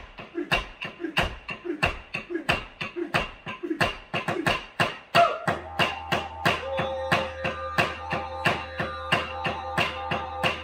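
Aboriginal clapsticks struck in a steady rhythm, about three to four sharp clicks a second, accompanying a dance. About five seconds in, a didgeridoo's low continuous drone joins underneath.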